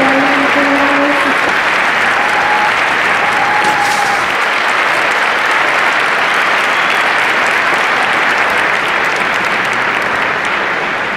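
Concert audience applauding and cheering, with a few short held shouts in the first few seconds.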